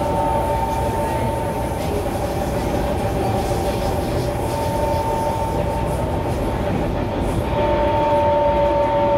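Kawasaki C151 train's traction motors whining at a steady pitch over the rumble of the wheels on the track, heard from inside the carriage. A second, lower whine joins about seven and a half seconds in.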